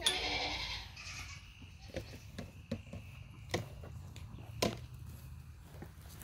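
A goat kid bleats briefly at the start. Then come a handful of sharp, irregular knocks as young goats clamber, jump and push on a wooden stump, their hooves hitting the wood.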